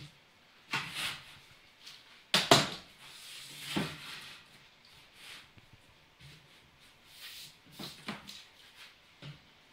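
Scattered knocks and rubbing from tools and workpieces being handled and set down, with one sharp knock about two and a half seconds in and a softer one a second later.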